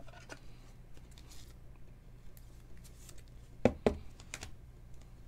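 Light clicks and taps of glossy chrome trading cards and their plastic holders being handled and sorted. There are a few sharper clacks between about three and a half and four and a half seconds in, over a faint low steady hum.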